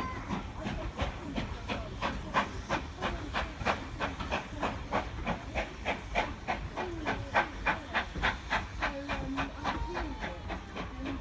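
Steam locomotive working, its exhaust beating in a steady rhythm of about four sharp beats a second, over a steady hiss of steam.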